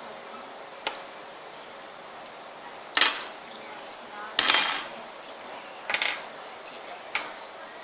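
Small hard tools and utensils clattering as they are handled and set down: a few sharp clacks, the loudest about three seconds in, and a half-second rattle about four and a half seconds in.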